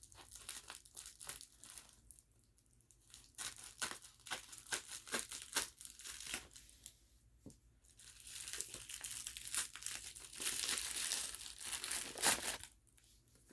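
Packaging being opened by hand: irregular crinkling, crackling and tearing, with a denser, steadier stretch of rustling and tearing in the second half.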